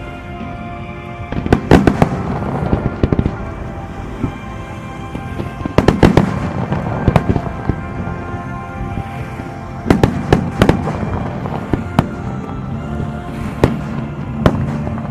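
Fireworks display: aerial shells bursting with sharp bangs in clusters, the biggest volleys about 2, 6 and 10 seconds in, over show music playing throughout.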